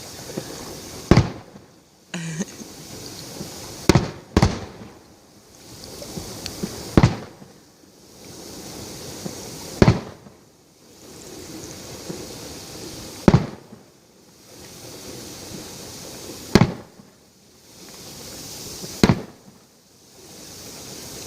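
Fireworks display: firework bursts going off with sharp bangs about every three seconds, about eight in all, two in quick succession early on. Each bang trails off into a hissing, crackling tail.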